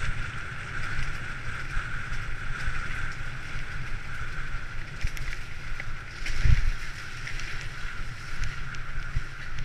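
Bicycle rolling along a wet gravel trail, with tyre rumble, grit crunch and wind buffeting the camera microphone. There is a heavier thud from a bump about six and a half seconds in.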